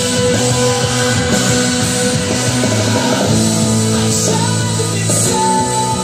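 Rock song with singing, played loud through a 2022 Harley-Davidson Road Glide Special's aftermarket Cicada Audio speaker system, fairing and rear speakers together, driven by a Cicada BDA1400.4D amplifier.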